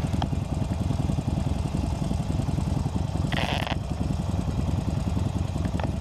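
Harley-Davidson Sportster's V-twin engine idling steadily with a fast, even pulse. About halfway through there is a brief rasping noise.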